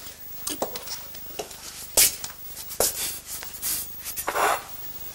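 A few sharp clicks and knocks of objects being handled, the loudest about two seconds in, then a short rushing hiss near the end.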